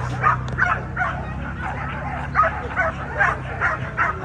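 Pit bull barking over and over, two or three short barks a second, with a pause of about a second in the middle. A steady low hum runs underneath.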